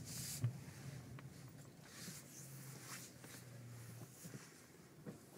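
Faint, steady low hum of a car's engine heard from inside the cabin as it rolls slowly, with a few light clicks and one short knock about half a second in.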